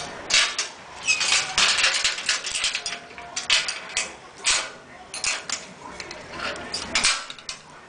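Handling noise from a phone's microphone rubbing and scraping against clothing, in irregular scratchy bursts.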